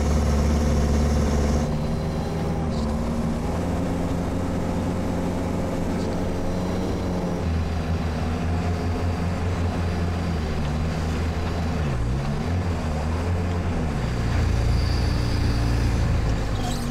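All-terrain vehicle's engine running under load as it drives across tundra, a steady low drone whose pitch wavers, dipping and climbing back about twelve seconds in.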